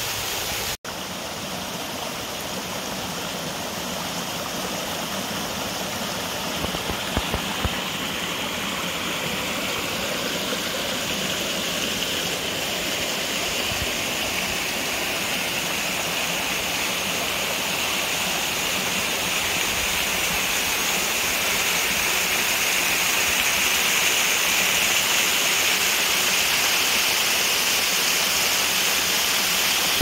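Steady rushing of a small woodland creek spilling over rock ledges and small falls, slowly growing louder. The sound cuts out for an instant just under a second in.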